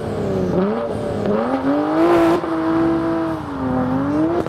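Competition car's engine accelerating hard, its pitch climbing and dropping back at each gear change, then held high and steady. Near the end it sags briefly and climbs again.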